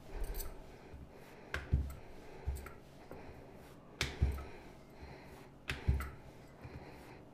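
Wooden rolling pin rolling out semolina dough on a rolling board: a sharp knock or clack every second or so, some in close pairs, as the pin and board bump and shift.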